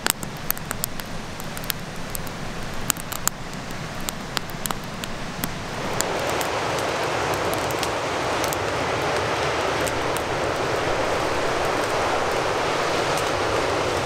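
Freshly lit split-wood kindling crackling with many sharp pops and snaps. About six seconds in, a steady, louder rushing of strong wind comes up and continues, with only occasional crackles over it.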